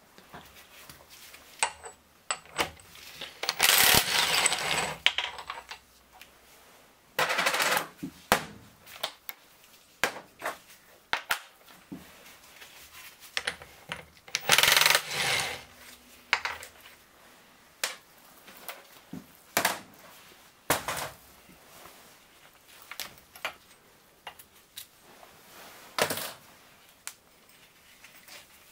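Cordless 18-volt impact wrench rattling in several short bursts, about a second each, as it undoes nuts on the gears of a motorcycle engine's open crankcase. Between the bursts come light metallic clinks and knocks of parts and tools being handled.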